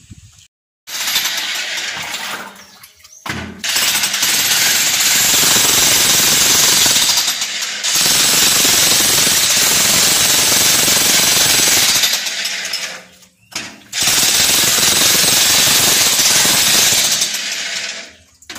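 Jackhammer hammering in several long runs with short pauses between them.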